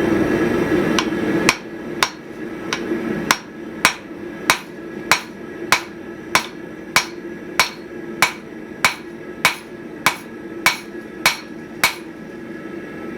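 Big hammer forging hot steel on an antique anvil bedded on cured silicone: about seventeen blows at an even pace, a little under two a second, starting about a second and a half in. Each blow rings only briefly, the anvil's ring deadened by the silicone bedding. A steady drone runs underneath, loudest before the first blow.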